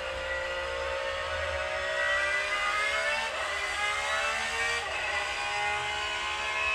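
Car engine accelerating, its pitch climbing steadily and dropping back at gear changes about three and five seconds in.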